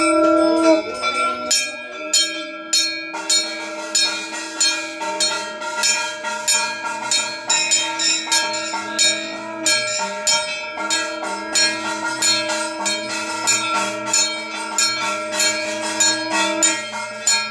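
Puja bells ringing fast and continuously, struck several times a second, over a long held note that breaks off briefly twice, about ten seconds in and near the end.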